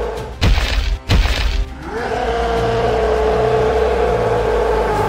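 Background music with a held tone, broken about half a second in by two loud crashing impact sound effects in quick succession, after which the music comes back.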